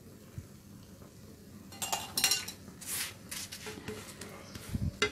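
A spatula scraping and tapping on a nonstick tawa as it presses down a thepla, in several short bursts starting about two seconds in, with a few knocks near the end.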